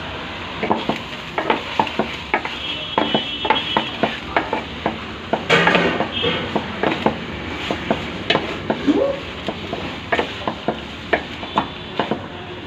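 Chicken masala being stirred in a cooking pan: a metal utensil knocks and scrapes against the pan over and over, about two or three times a second, over a steady sizzle.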